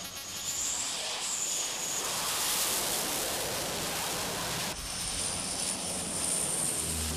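Jet aircraft engines running on an aircraft carrier's flight deck: a loud, steady rushing noise with a thin, high turbine whine that rises and falls. The sound changes abruptly a little under five seconds in.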